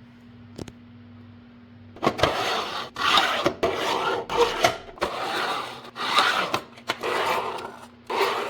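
Hard scraping and rubbing strokes, about six in a row, each under a second long, from 3D-printed plastic parts being slid against each other.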